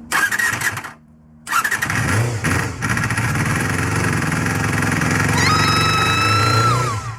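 Honda Jade MC23's 250 cc inline-four MC14E engine starting: a brief burst of firing that dies after about a second, then the engine catches about a second and a half in and keeps running. Past the middle a high whine rises, holds, and drops away near the end.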